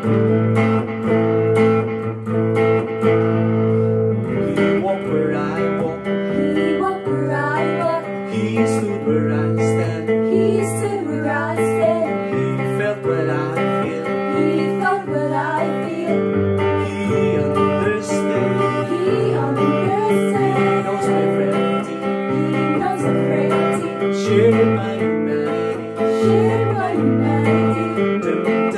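Several voices singing a worship song together over a strummed guitar, the chords changing every second or two.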